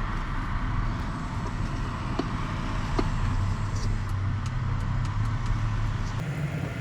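A car engine running with a steady low hum, a couple of faint clicks over it, and a change in the hum near the end.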